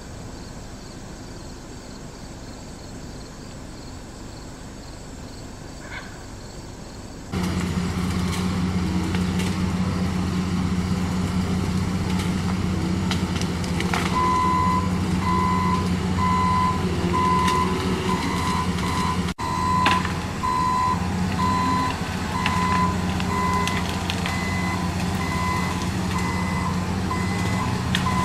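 A heavy work vehicle's engine running steadily, starting suddenly about seven seconds in after faint outdoor noise. About halfway through, its reversing alarm begins a regular series of beeps.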